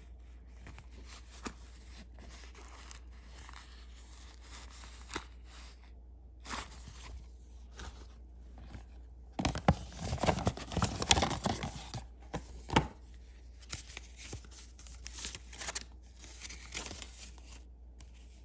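Rustling and scraping of a cardboard jewellery box and its paper packaging being handled, with a louder stretch of scraping, crinkling and a few sharp knocks about ten seconds in.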